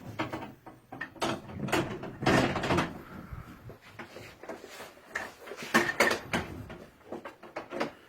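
Knocks, clatters and thumps of bed-frame parts being handled and fitted, the metal headboard-side bar lifted over onto the frame. The loudest clatter comes about two to three seconds in, with another sharp knock about six seconds in.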